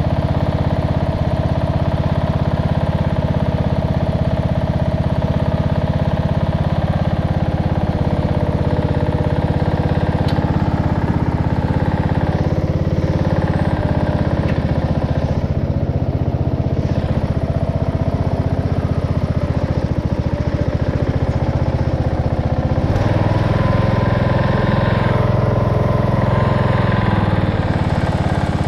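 Race lawnmower's engine running steadily at throttle, with a change in its tone about two-thirds of the way through.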